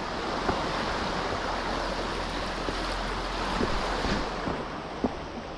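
Sea waves washing against a rocky shore: a steady rushing surf that swells a little and eases, with a few faint knocks.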